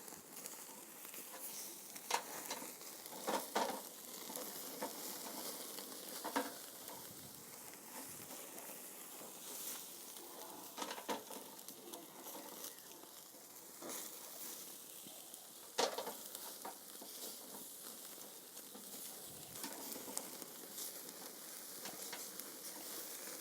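Lamb kebab skewers sizzling over a charcoal grill: a steady sizzle with scattered sharp crackles and pops.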